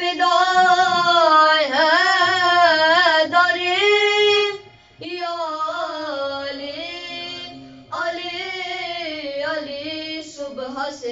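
Boys reciting a Shia devotional manqabat in song through a microphone, in long held melodic phrases, with short breaths about five seconds in and again near eight seconds.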